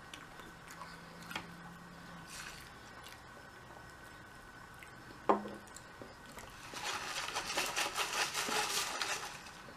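Beer poured from a bottle into a cup of Clamato and beer, a sharp knock about five seconds in, then fizzing and crackling for a couple of seconds as the drink is stirred with a straw.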